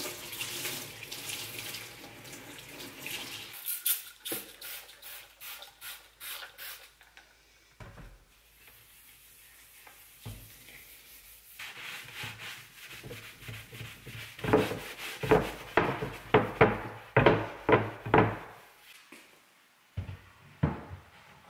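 Kitchen tap running into a sink while a sponge is rinsed. Then a sponge scrubs a worktop in quick back-and-forth strokes, about three a second, and there are a few short knocks near the end.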